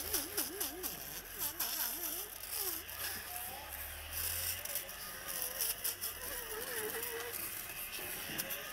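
A blade scraping scales off a milkfish, in a rapid, irregular run of short scraping strokes, over a low steady hum.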